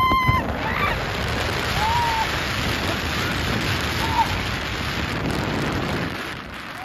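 Steady rushing hiss of a snow tube sliding fast over snow, with snow spray and wind on the phone's microphone; it dies down near the end. A shout trails off right at the start, and short yelps break in a couple of times.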